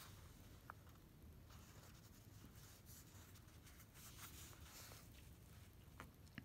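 Near silence with faint rustling and rubbing of fingers on thread and paper as a knot is tied in bookbinding thread, with a couple of faint ticks near the end.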